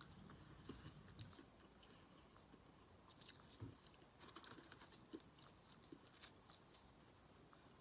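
Faint close-up chewing and mouth sounds of a person eating Chinese takeout food, with scattered soft crunches and small wet clicks.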